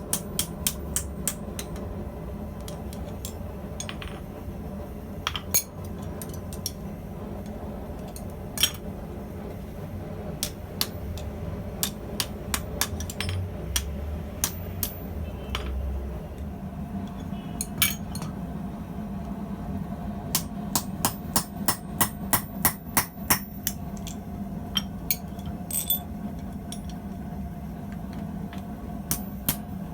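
Blacksmith's hammer striking hot steel tubing on an anvil: scattered single blows, then a quick run of about a dozen strikes some twenty seconds in, over a steady low hum.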